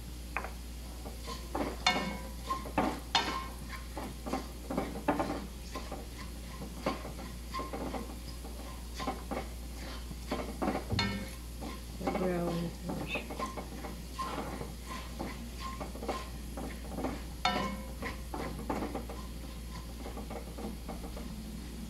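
Silicone spatula stirring and scraping minced garlic in olive oil around a nonstick wok, in irregular strokes, over a light sizzle.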